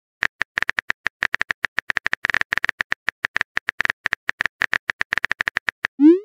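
Simulated phone-keyboard typing clicks, a rapid run of about eight short taps a second as a text message is typed letter by letter. It ends with a short rising swoosh as the message is sent.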